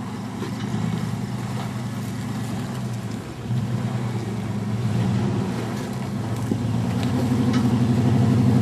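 Dodge Ram pickup's engine running at low revs on an off-road trail, steady with a brief dip about three seconds in, then growing louder toward the end.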